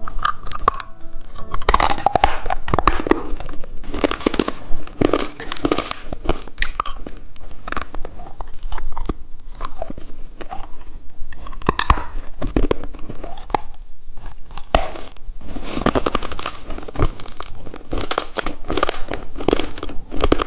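Hard lollipop candy crunched and chewed close to the microphone: dense, irregular crunching with sharp cracks and crinkling.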